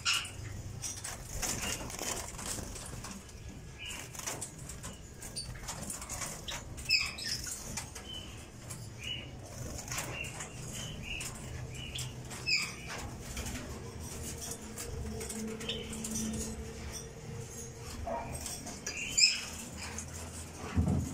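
Caged pet birds fluttering their wings in their cages, one of them a little scared, with short high chirps now and then and a steady low hum underneath.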